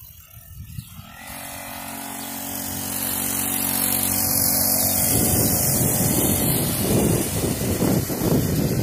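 A child's mini dirt bike motor running steadily as the bike rides off, getting louder over the first few seconds. About halfway through, a rough rumbling noise takes over.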